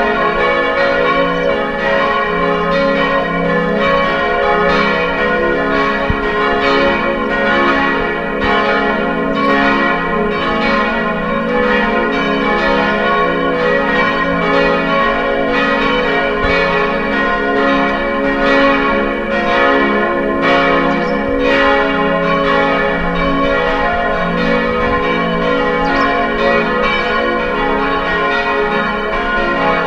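Several church bells ringing together in a steady peal, their strokes overlapping.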